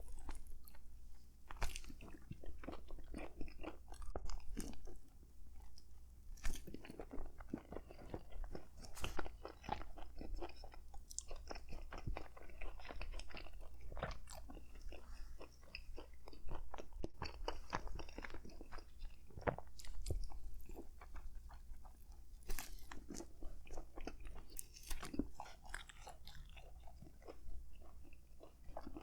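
Close-up chewing of a turkey hoagie on crusty baguette-style bread: steady wet mouth sounds with irregular crunches and smacks as the bread crust is bitten and chewed.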